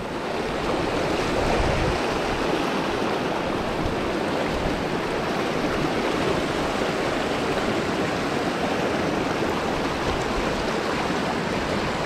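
Shallow mountain creek rushing steadily over rocks and small cascades, a continuous even wash of water noise.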